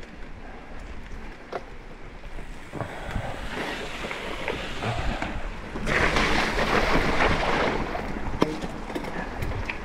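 Mountain bike riding along a dirt trail: tyre rumble and wind on the microphone, swelling about three seconds in and loudest just past the middle, with a few sharp clicks and knocks.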